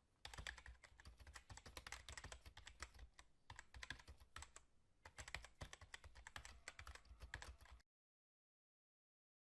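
Faint, rapid keyboard typing clicks in quick runs with short pauses, cutting off abruptly about eight seconds in.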